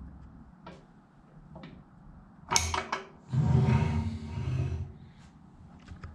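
A sharp clack, then about a second and a half of a heavy rumbling slide: the Grizzly G0833P table saw's rip fence being pushed along its rail.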